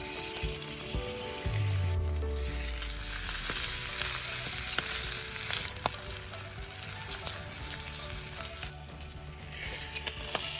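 Food sizzling hard over a campfire, a dense crackling hiss that is loudest in the first half and eases off after about five seconds, with a few sharp pops.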